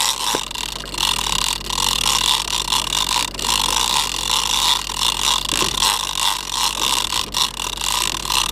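Big conventional offshore fishing reel being cranked, its gears whirring steadily as line is wound in on a heavy shark rod.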